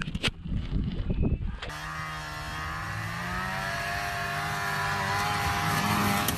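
Snowmobile engine running at speed, its pitch rising slightly and its sound growing louder toward the end. Before it, in the first second and a half, there is rumbling, knocking wind and handling noise on the microphone.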